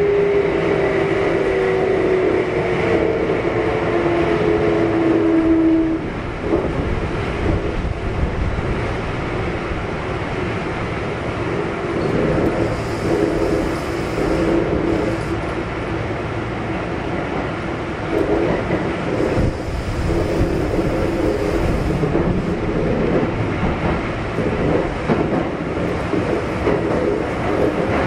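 Kintetsu 1233 series electric train heard from inside the car: the whine of its Hitachi GTO inverter falls in pitch for about six seconds as the train slows, then cuts off. After that only steady wheel-and-rail running noise with rail-joint clatter is left.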